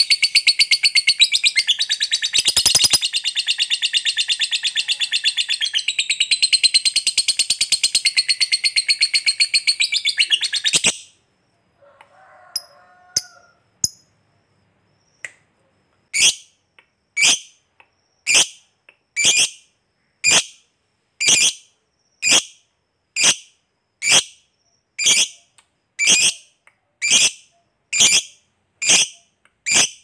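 Lovebird giving a long, very fast chattering trill (the 'ngekek panjang' prized in fighter lovebirds), which stops abruptly about eleven seconds in. After a few faint chirps it calls again in short, sharp, high notes at about one a second.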